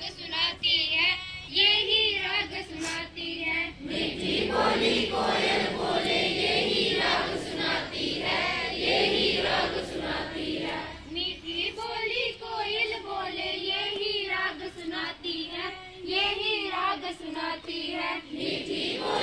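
A group of school students singing a prayer song in chorus, led by girls' voices at a microphone. The singing grows fuller for a stretch about four seconds in, then thins again about eleven seconds in.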